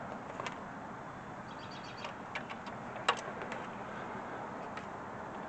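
Steady low background noise with a few light clicks and taps from handling, the sharpest about three seconds in.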